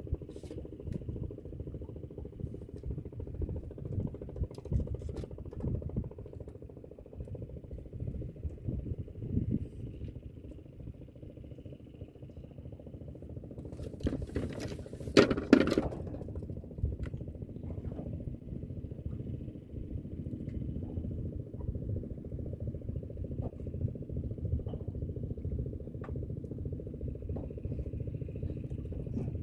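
A small engine running steadily with a low rumble, with scattered knocks and clatter and one louder brief rushing burst about halfway through.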